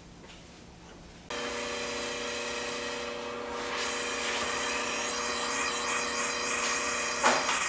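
Jeweller's gas soldering torch for silver soldering, switched on abruptly about a second in: a steady hiss with a low steady hum under it. The hiss grows stronger partway through, and the hum cuts off with a short bump near the end.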